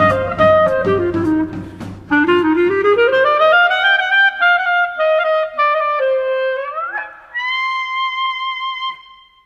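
Instrumental music: a wind instrument plays a solo melody over a drum beat that drops out. It glides up into one long held note that fades out as the track ends.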